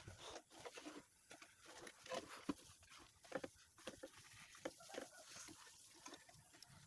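Near silence, with faint, irregular clicks and short knocks scattered throughout.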